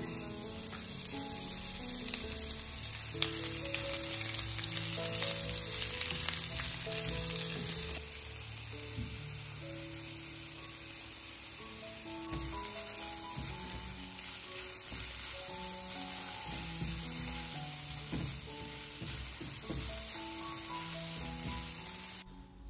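A steady sizzle, heavier for the first eight seconds and then lighter, cutting off just before the end, over background music with a melody.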